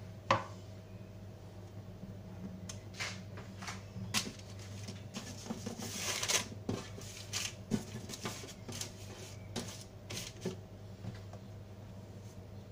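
Scattered light knocks, taps and scrapes of a plastic pastry mould and dough rounds being handled on a granite countertop, with a sharp knock about a third of a second in and a brief rustling scrape around six seconds. A steady low hum runs underneath.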